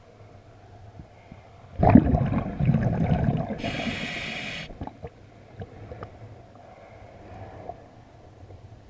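A diver breathing through a regulator underwater: about two seconds in, a loud burst of exhaled bubbles rumbles and gurgles, then an inhalation draws a steady hiss through the demand valve for about a second.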